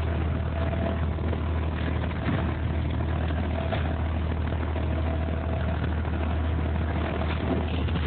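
Boat engine running steadily underway, heard from inside the cabin: a constant low hum with a faint steady whine above it, over the rush of water against the hull.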